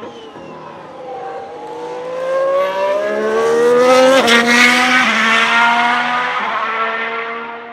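Ferrari SF71H Formula 1 car's 1.6-litre V6 turbo hybrid engine accelerating past, its pitch climbing through a gear and then dropping sharply at an upshift about four seconds in. Further shifts follow as it passes at its loudest and fades away.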